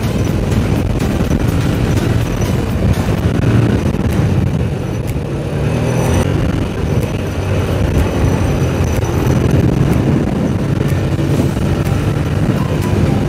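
TVS Apache RTR 160 motorcycle's single-cylinder engine running steadily while riding, heard under a constant low rumble of wind and road noise.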